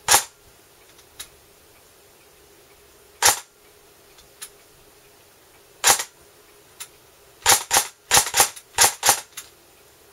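ICS M1 Garand electric airsoft gun firing single shots, one sharp report per trigger pull: three slow, spaced shots, then about seven fast ones in quick succession. Each pull gives exactly one shot whether slow or fast, showing reliable semi-auto operation after internal customisation.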